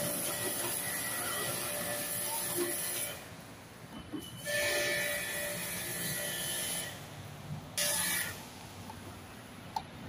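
Pressure washer spraying water onto a window-type air conditioner's coils: a hissing spray with a steady whine from the machine. It comes in three bursts: a long one that stops about three seconds in, a second of about two seconds, and a short one near the end.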